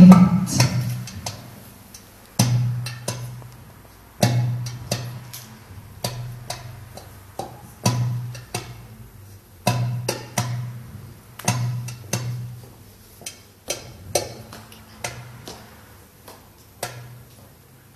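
Hand drum played with the hands: a deep bass stroke about every two seconds with lighter sharp slaps and taps between, growing softer near the end.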